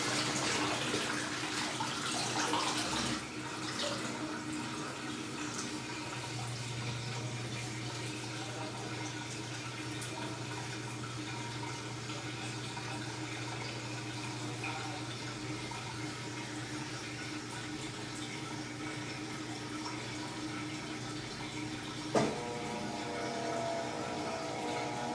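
Electrolux LTE12 top-loading washing machine taking in water, loudest for the first few seconds and then softer, with a steady low hum underneath. Near the end a click is followed by a pump hum with several steady tones.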